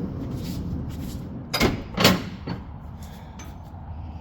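A truck-bed drawer sliding out on its runners with a low rumble, then two sharp clunks about a second and a half and two seconds in, and a lighter knock just after.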